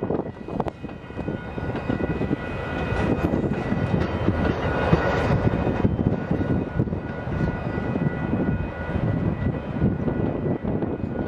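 Amtrak Superliner bi-level passenger cars rolling past at close range: a steady rumble of steel wheels on rail that swells about midway, with faint steady high-pitched tones over it.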